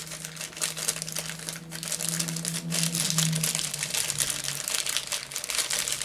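Crinkling and rustling of a plastic blind-bag wrapper being worked open by hand.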